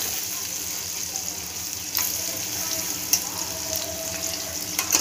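Eggplant strips frying in hot oil in a metal kadai, a steady sizzle, nearly done. A couple of sharp clicks come about two seconds in and near the end.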